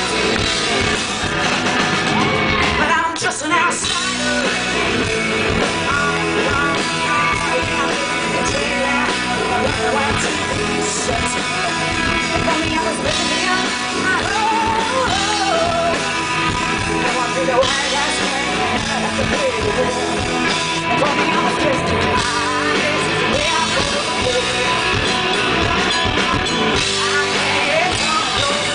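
Live rock band playing at full volume, with a woman singing lead over electric guitar.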